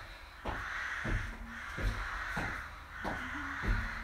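Feet landing on a wooden plyo box and the rubber-matted floor during box step-overs: six dull thumps, about one every two-thirds of a second. A harsh rasping sound fills most of the gaps between the steps.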